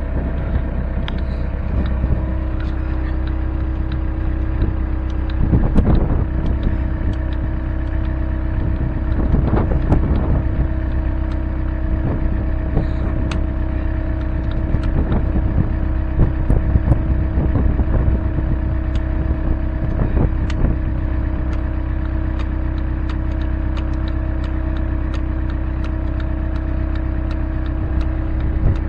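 Caterpillar 308C excavator's diesel engine running steadily, with scattered metallic clicks and knocks and a few brief louder swells.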